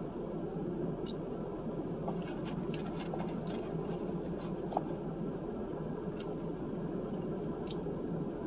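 Someone eating close to the microphone: scattered small chewing and mouth clicks, a slightly sharper one about five seconds in, over a steady low background hum.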